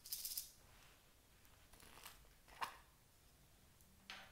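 Small round plastic container of sequins being handled and opened: a brief rattle as it is lifted, then sharp plastic clicks, one about two and a half seconds in and another near the end.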